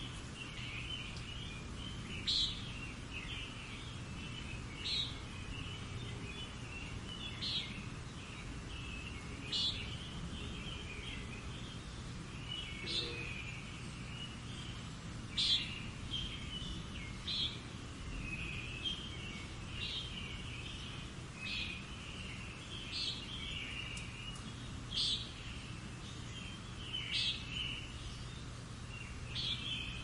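Songbirds calling and singing: a sharp, high call repeated about every two to two and a half seconds over continuous high twittering.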